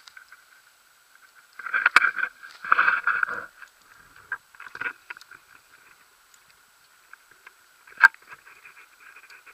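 Muffled rustling and scraping from handling of the pole-mounted camera and harness gear, in a few short bursts, with sharp knocks about two seconds in and again near the end.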